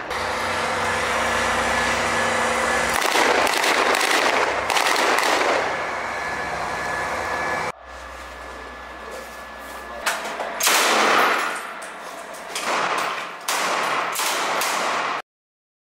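Gunfire: a dense run of shots and bangs, with a sudden drop about eight seconds in. Further loud shots follow, and it cuts off abruptly near the end.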